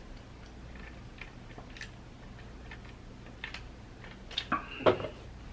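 Faint small clicks and mouth sounds from sipping an iced drink through a straw in a clear plastic tumbler. About four and a half seconds in come a few louder knocks as the tumbler is moved and set down.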